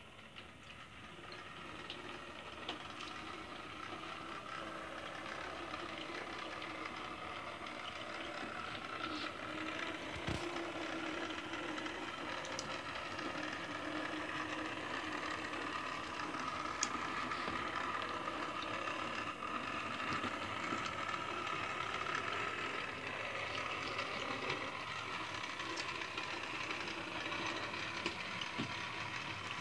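Model Class 08 diesel shunter running along the layout's track with track panel carrier wagons in tow: a steady mechanical hum that grows louder over the first few seconds, with a few light clicks of wheels over the rails.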